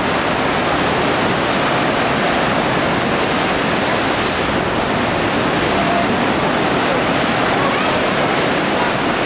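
Steady, loud rushing of wind and sea by a choppy shore, even and unbroken.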